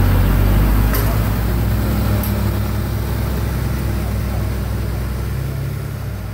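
Diesel engine of a MAN TGS 41.480 tractor unit running under load with a deep, steady drone as the truck drags itself through soft mud, the sound slowly easing off. Two light clicks about one and two seconds in.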